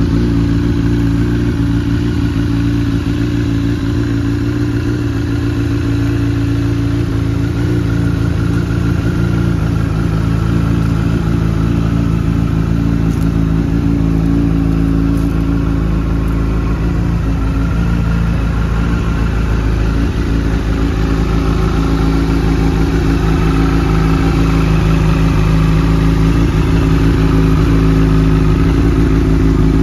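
2005 Honda CBR1000RR Fireblade's inline-four engine idling steadily.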